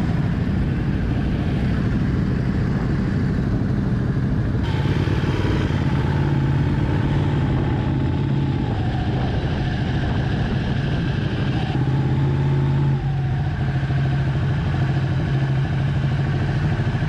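Ducati sportbike engine running at low revs as the bike rolls slowly, heard from the rider's helmet, its pitch rising and falling slightly a couple of times.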